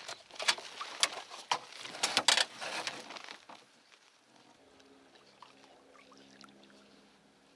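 Sharp clicks, knocks and rustling of fishing tackle being handled in a small boat while a hook is rebaited with worms. From about four and a half seconds in, a faint steady low hum takes over.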